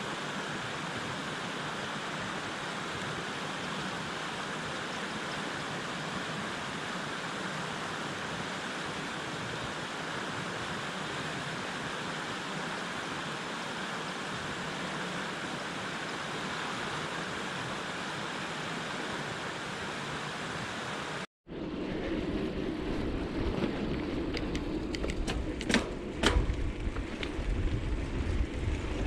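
Fast-flowing floodwater rushing through woodland, a steady, even hiss. About two-thirds of the way through it cuts off, and wind rumbles on the microphone of a bike being ridden along a path, with a few sharp clicks.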